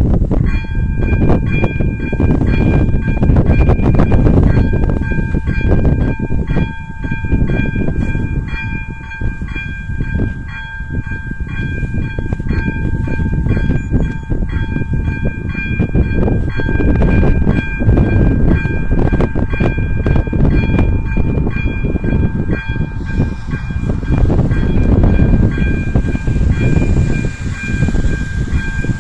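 Electronic bell of an AŽD 97 railway level crossing starts ringing about half a second in, a steady high warning tone that carries on, as the crossing warns of an approaching train. A heavy low rumble runs underneath it.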